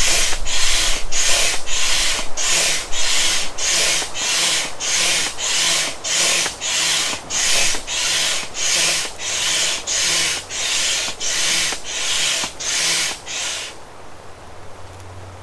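Rhythmic hissing strokes, a little under two a second, slowly weakening, then stopping abruptly near the end.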